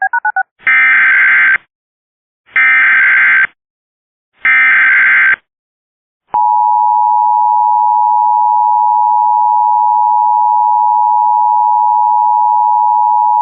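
Emergency Alert System tones: three one-second bursts of SAME digital header data, the encoded alert for a local area emergency. They are followed by the two-tone EAS attention signal, a steady tone held for about eight seconds.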